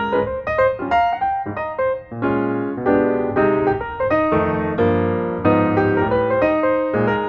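Piano music: a steady run of notes and chords played at a moderate pace.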